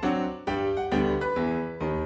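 Background music on piano: chords struck about every half second.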